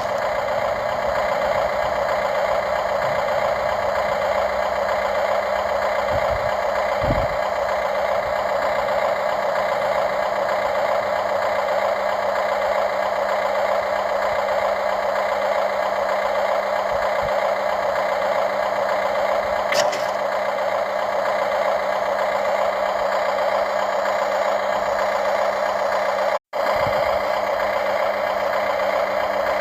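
Steady running of a radio-controlled excavator's motor and drive, an even mechanical hum that holds one level throughout, with a split-second dropout about three-quarters of the way through.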